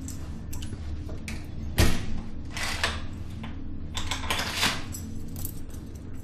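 A door's lock and handle rattled and clicked, with scraping metal sounds and one heavy thump against the door about two seconds in, over a low steady hum.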